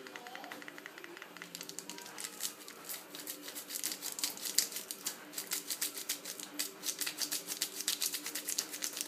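Rapid crackling clicks of a packet being squeezed and shaken over a cup to sprinkle chocolate onto the foam, getting louder and busier about a second and a half in.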